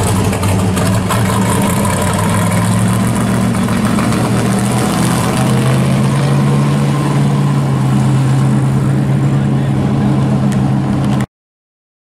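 Early-1960s Chevy II's engine running with a steady, low exhaust note as the car drives slowly past and away; the sound cuts off suddenly near the end.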